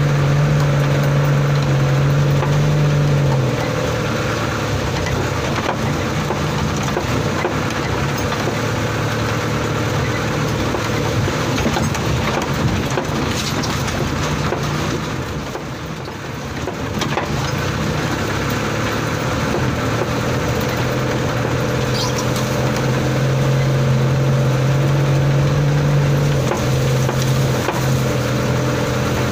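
Old truck's engine running under load, heard from inside the cab, its drone shifting in pitch a few times with the throttle. Over it runs a constant clatter and creaking of the worn cab and body as the truck crawls over rough, muddy ruts.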